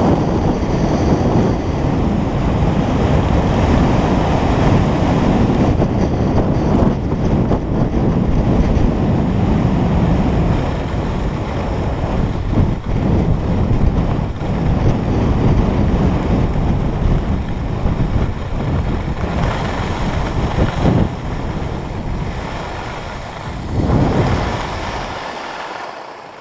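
Wind rushing over the camera microphone together with the hiss and scrape of skis sliding on packed snow during a downhill run. The noise is steady and loud, then dies away over the last couple of seconds as the skier slows down.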